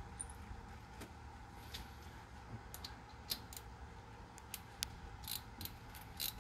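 Faint, irregular metallic clicks from hand tools as a thread tap and ratchet are set and worked into a hole in an aluminium intake plenum. The clicks come more often in the second half.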